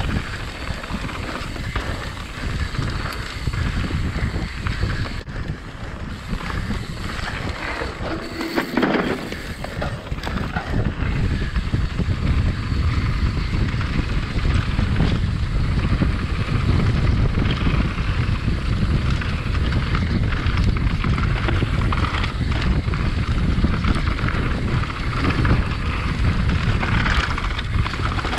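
Wind buffeting the microphone over the rush and rattle of a mountain bike riding a dirt trail at speed, growing a little louder after about twelve seconds.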